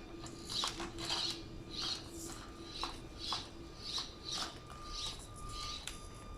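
The Axial SCX24 Deadbolt micro crawler's small electric motor runs with a steady whine as it crawls. Short high chirps or squeaks repeat about twice a second over it.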